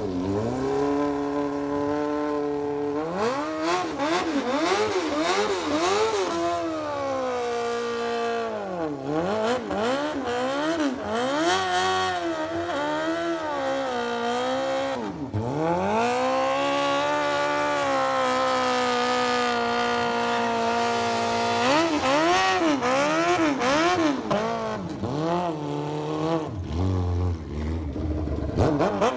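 Suzuki GSX-R750's inline-four engine with a Brocks exhaust revving hard through a burnout, the rear tire spinning on the asphalt. The revs swing up and down in quick blips, hold high and steady for several seconds in the middle, then rise and fall again near the end.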